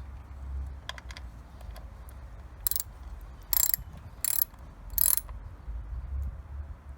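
Ratchet wrench clicking in four short bursts about a second apart, over a low hum.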